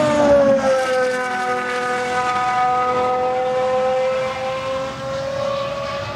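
The naturally aspirated Cosworth GMA V12 of a Gordon Murray T.50s track car at high revs, a high-pitched engine note as the car passes on track. The pitch drops in the first second as it goes by, then holds and climbs slowly as it pulls away, growing a little fainter near the end.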